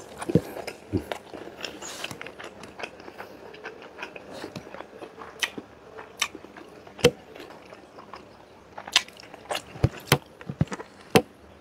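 Close mouth sounds of a person eating milkfish and rice: chewing and lip-smacking, heard as irregular sharp smacks and clicks, with a cluster of louder ones in the last few seconds.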